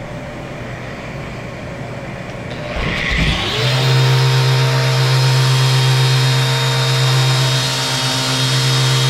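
Power saw motor spinning up about three seconds in, its pitch rising, then running at full speed with a loud steady hum, over a steady background noise.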